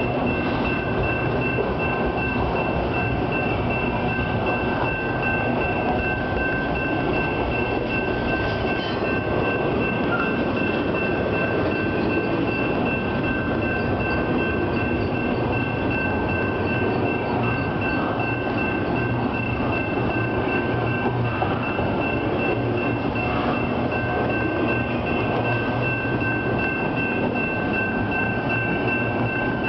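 Double-stack intermodal container train rolling past a grade crossing: a steady rumble and clatter of railcar wheels on the rails, with two steady high-pitched tones over it.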